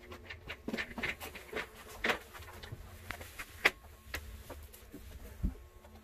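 Handling noise from an office chair being lifted and carried across carpet: scattered light clicks and knocks, the sharpest about two-thirds of the way through, and a dull thump near the end.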